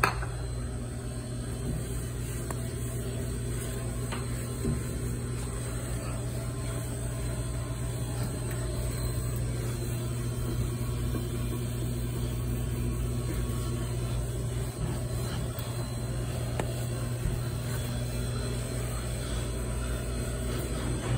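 Steady low machine hum that holds one level throughout, with a couple of faint knocks.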